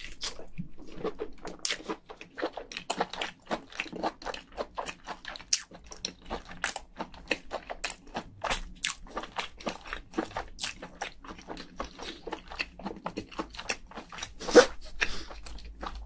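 Close-miked mouth sounds of chewing cooked lobster meat: wet smacks and clicks, several a second, with one louder smack near the end.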